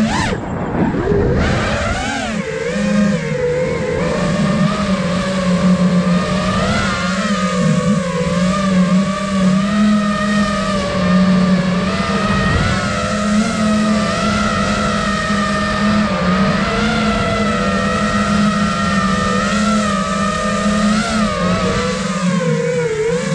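Brushless motors and propellers of an iFlight Nazgul Evoque 5-inch FPV quadcopter, heard from its onboard camera in flight: a loud, continuous buzzing tone whose pitch rises and falls as the throttle changes.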